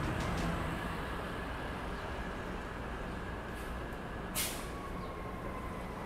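Steady city street traffic rumble, with one brief sharp hiss about four and a half seconds in.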